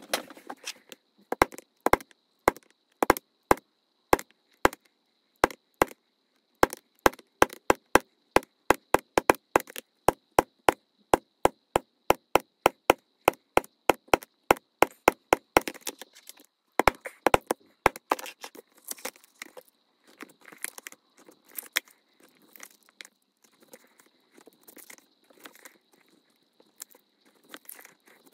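A rapid series of sharp taps or clicks, two to four a second, that grow fainter and more scattered after about two thirds of the way through.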